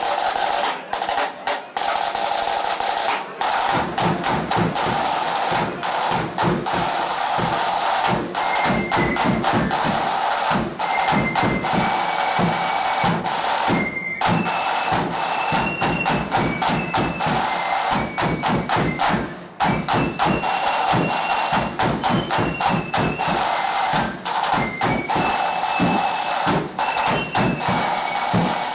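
Blood-and-thunder marching flute band playing: snare drums rattling out fast rolls and a bass drum pounding in about three seconds in, under a high flute melody.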